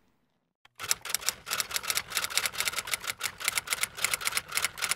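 Typing sound effect: a rapid, uneven clatter of key clicks, several a second, starting just under a second in, laid under on-screen text being typed out.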